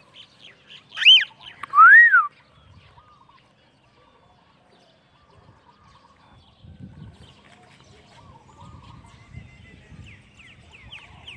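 Cockatiel giving two loud whistled calls about a second apart, each a quick rise and fall in pitch, followed by faint chirping and a few quick chirps near the end.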